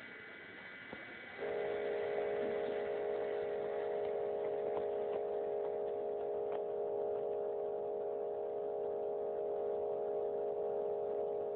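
A steady electronic synthesizer tone, one held chord of several pitches, comes in sharply about one and a half seconds in and holds unchanged. Before it there is a fainter, higher steady electronic tone, and a few faint clicks sound over it.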